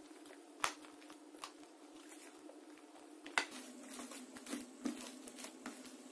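Hands squishing and kneading soft, fluffy slime in a glass dish: sticky clicks and squelches, with a sharp pop a little past halfway and a denser run of crackling squishes after it, over a faint steady hum.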